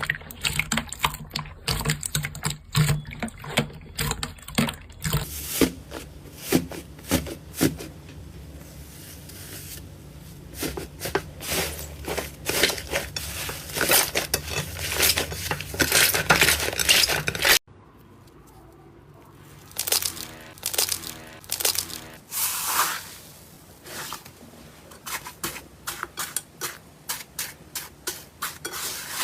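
Slime being squeezed, stretched and pressed by hand, giving rapid crackling and popping clicks. The sound breaks off abruptly about two-thirds of the way through, then picks up again.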